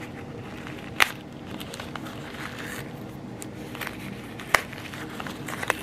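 Plastic food containers and packaging being handled: three sharp clicks, about a second in, a few seconds later and again near the end, with light crackling between.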